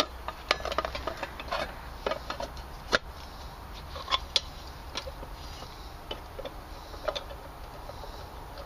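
Irregular sharp clicks and taps of plastic and metal as gloved hands work at an outdoor air-conditioner electrical disconnect box, fitting a part back into it.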